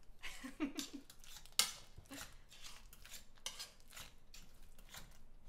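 Metal wire potato masher pressing and scraping through mashed potatoes in a stainless steel pot: a run of irregular squeaky clacks and scrapes, two or three a second, the loudest about one and a half seconds in.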